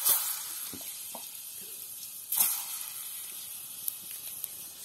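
Slices of plantain (plátano macho) frying in hot oil in a clay cazuela. The sizzling flares sharply as the pieces go in, once at the start and again about two and a half seconds in, and between the flares there is a steady hiss.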